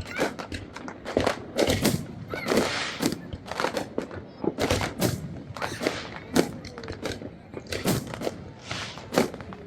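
Fireworks exploding in an irregular, rapid series of bangs, about two a second.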